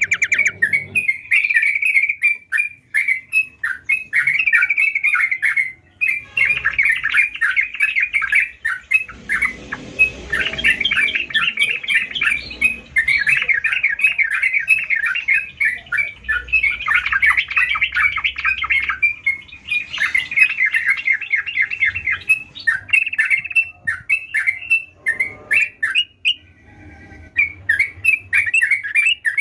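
Yellow-vented bulbul (trucukan) singing hard: long runs of rapid chattering, bubbling notes, with a few short pauses near the end.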